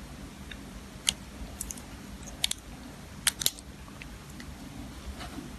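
Small sharp metallic clicks and taps, about half a dozen, several in quick pairs, as a new button-cell battery is handled and fitted into a quartz watch movement.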